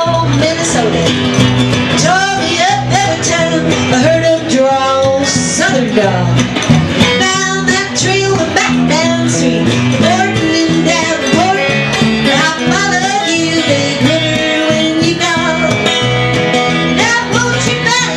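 A live country band: a woman singing over strummed acoustic guitar and a pulsing electric bass line.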